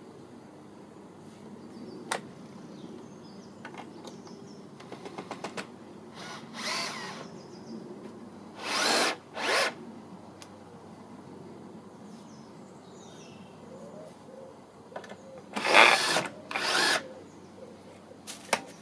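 A power drill running in several short bursts, each about half a second, with the loudest pair about two-thirds of the way in. Sharp clicks and a quick run of ticks fall between the bursts, and faint birdsong sits in the background.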